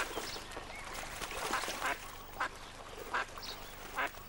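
Ducks fighting in the water: steady splashing with several short quacks about a second apart.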